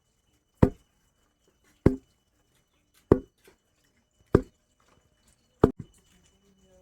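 Rice being pounded in a mortar: five heavy, evenly spaced thuds, about one every 1.25 seconds, the last followed by a small second knock.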